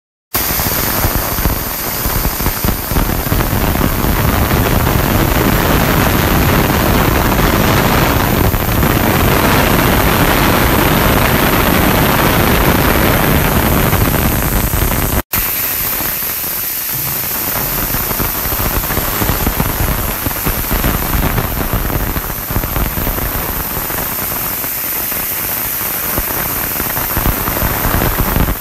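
Industrial ultrasonic cleaning tank running: a loud, steady hiss from the agitated cleaning liquid, typical of ultrasonic cavitation. It cuts out for an instant about halfway through, then carries on a little quieter.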